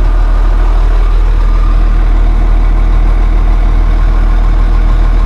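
Diesel engine idling steadily, freshly serviced with new oil and primed fuel filters, running so the oil can circulate before the level is rechecked.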